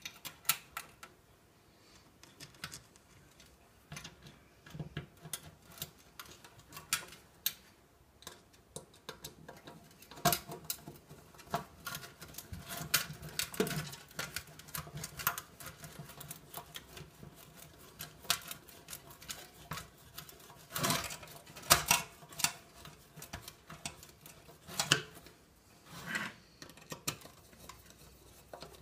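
Screwdriver driving screws back into the base of a toaster: a long string of irregular small clicks and taps from the screwdriver tip and the handled toaster, with a few louder knocks.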